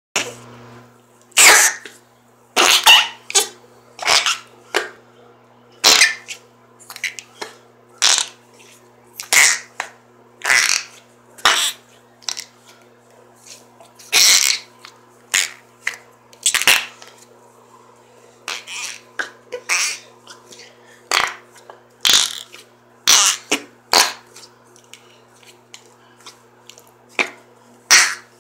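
Noise putty being pressed and squeezed in its tub, giving fart-like squelches as trapped air is forced out: dozens of short squelches, irregularly spaced, some in quick runs of two or three.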